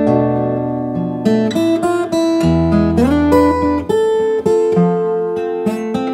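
Maton EBG808TEC steel-string acoustic guitar played fingerstyle: a melody of plucked notes over bass notes, with a slide up the neck about halfway through.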